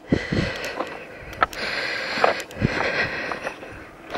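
Footsteps crunching on a pebble beach: loose stones shift and grind underfoot with each step, with sharp clacks of pebbles knocking together.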